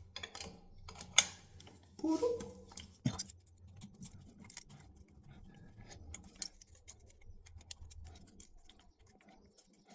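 Small clicks, ticks and scrapes of a soap dispenser being screwed to the wall by hand, with a sharp click about a second in and another near three seconds. A short voice sound comes about two seconds in.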